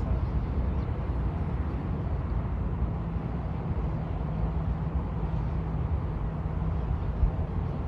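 Wind buffeting the microphone: a steady low rush with no distinct events.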